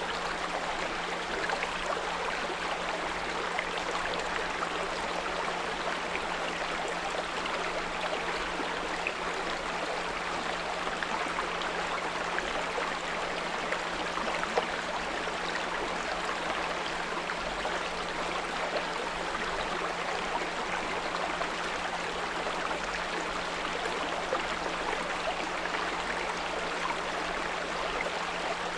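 A small brook's water running steadily, with a constant low 174 Hz pure tone held underneath.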